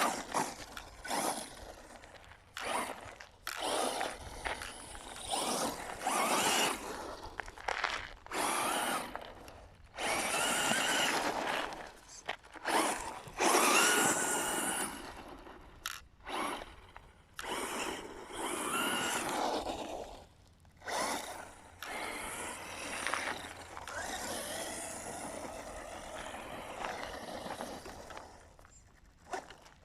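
Quanum Vandal electric RC buggy's motor whining in repeated throttle bursts of one to three seconds, its pitch rising and falling, mixed with the rush of tyres on loose dirt.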